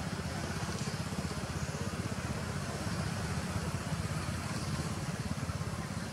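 Steady low engine rumble with a fast, even flutter.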